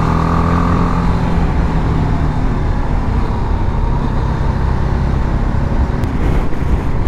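BMW G310GS's single-cylinder engine pulling steadily up a mountain pass, its tone clearest in the first second or so and then largely buried under loud, steady wind and road rush on the bike-mounted microphone.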